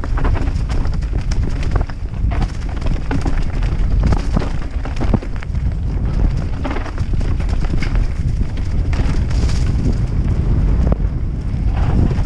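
YT Capra enduro mountain bike descending a rocky trail at speed: tyres rumbling and clattering over stones, with a constant run of sharp knocks and rattles from the bike, and wind buffeting the microphone.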